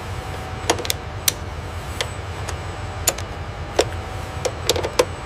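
Scattered sharp clicks and taps of a hand tool and connectors being worked on an electronics assembly, about ten in all and bunched a little before the end, over a steady low hum.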